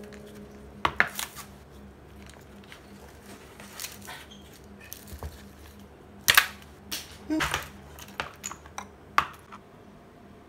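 Ice cubes being twisted out of a silicone ice cube tray and dropped into a glass bowl of cold udon, making sharp clinks and knocks against the glass. A couple of clinks come about a second in, then a busier run of them a little past the middle.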